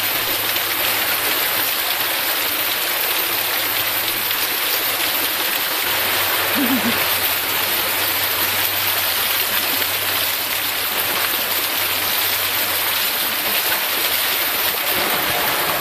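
Water pouring from a bamboo pipe and a small rocky waterfall, splashing down onto stone and over a person bathing beneath it: a steady, even rush.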